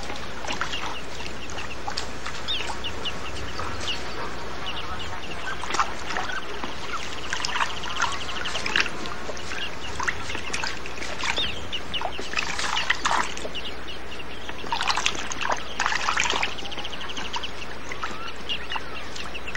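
Birds chirping and trilling over a steady outdoor hiss, with scattered short splashes from rhesus macaques wading in a shallow pool. A quick rapid trill comes and goes several times.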